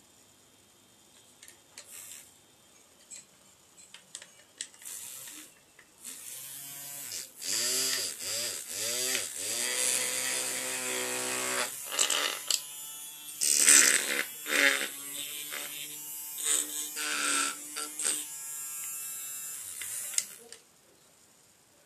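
Small electric motor of a homemade micro circular saw made from a toy jigsaw, switched on in short bursts. Its whine rises and falls as it spins up and down, then it runs for several seconds at a stretch and stops shortly before the end. A few light handling clicks come before it starts.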